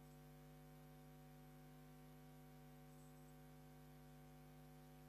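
Near silence with a faint, steady electrical hum and light hiss.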